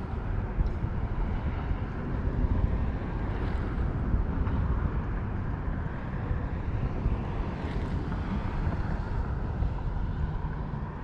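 Wind buffeting the microphone: a steady, rumbling noise heaviest in the low end that keeps rising and falling in strength.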